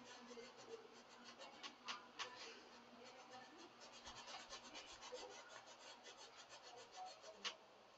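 Paintbrush scratching against a canvas in quick short strokes: a faint, rapid ticking with a few sharper clicks.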